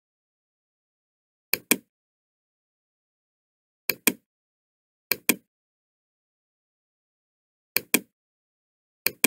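Computer mouse clicks in quick pairs, five pairs in all, with dead silence between.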